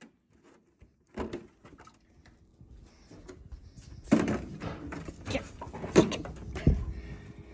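Handling noise from a plastic gallon milk jug: a short click as its cap is put on about a second in, then from about halfway through a run of knocks and rustles as the jug is carried to the refrigerator and set against it, the loudest knock about six seconds in.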